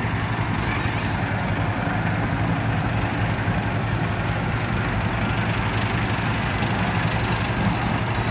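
Farm tractor's diesel engine running steadily at low revs.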